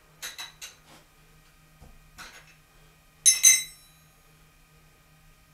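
Metal clinking during a tool change on a milling machine's ER collet chuck: a few light clicks of the collet wrench on the nut, then about three seconds in two loud, sharp metal-on-metal clinks that ring briefly.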